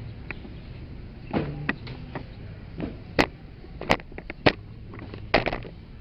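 Irregular sharp knocks and clacks, about half a dozen over a few seconds, of parts and tools being handled while a washing machine is worked on, over a low steady hum.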